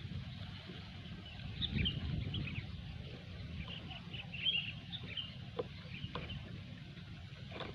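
Sooty-headed bulbuls (kutilang) calling in short, scattered chirps, over a steady low rumble of background noise.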